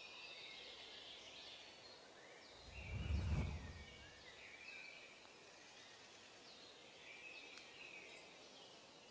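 Birds chirping and calling over a faint outdoor ambience, with a low whooshing swell about three seconds in.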